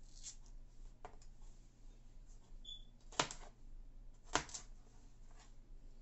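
Chef's knife cutting a green bell pepper on a plastic cutting board: light taps and scraping, then two sharp knocks of the blade hitting the board just over a second apart, a little past halfway.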